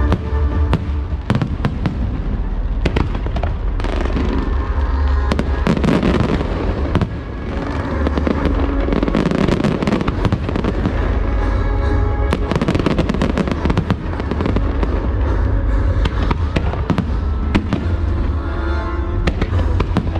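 Aerial fireworks bursting and crackling in quick succession over loud music played for the show.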